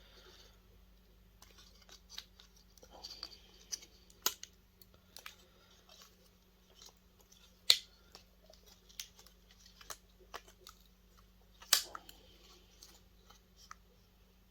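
Hand tools clicking and clinking on the metal parts of a video projector being dismantled: irregular small clicks, with three sharper knocks about four, eight and twelve seconds in. A faint steady hum runs underneath.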